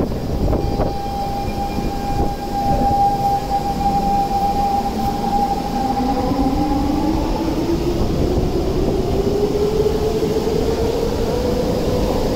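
Singapore MRT train pulling out of the station and accelerating. A steady electric whine sets in about half a second in and fades after about seven seconds. Meanwhile a second whine climbs steadily in pitch as the train gathers speed, over the low rumble of the moving cars.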